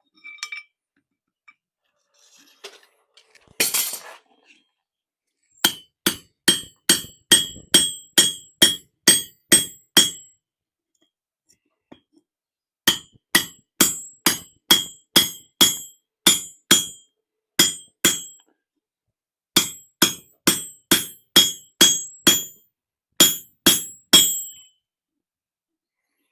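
Hammer blows on a blacksmith's punch driven into hot steel over the anvil, in three runs of about a dozen ringing strikes, roughly three a second, with short pauses between. They follow a brief scraping noise. Each blow rings with a clear metallic tone.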